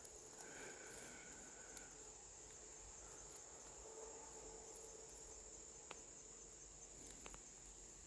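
Faint, steady, high-pitched chirring of insects in woodland, with a few light clicks.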